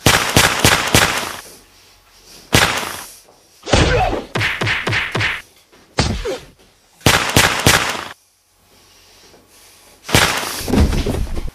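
About six loud bursts of whacking and rustling, close to the microphone, with short quiet gaps between them, as things are grabbed and struck or flung about.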